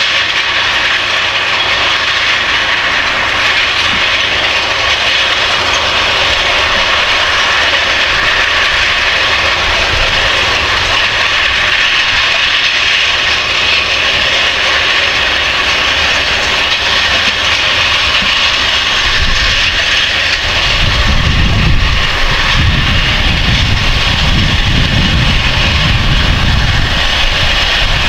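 Case Quadtrac 620 tracked tractor's diesel engine running steadily under load while it pulls a cultivator and roller. About two-thirds of the way in, a heavier, uneven low rumble joins it and the sound grows slightly louder.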